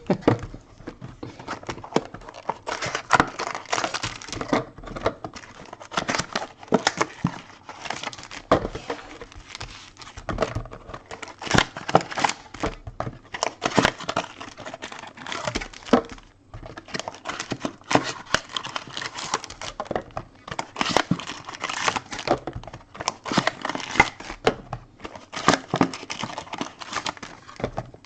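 Crinkling, rustling and tearing of plastic wrapping on a sealed trading-card box as it is handled and unwrapped, in dense irregular crackles with short pauses.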